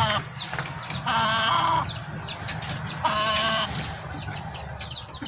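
Chickens calling: three loud, drawn-out squawks of about half a second each (one at the start, one about a second in and one about three seconds in), over a rapid stream of short, high, falling chirps that grows busier in the second half.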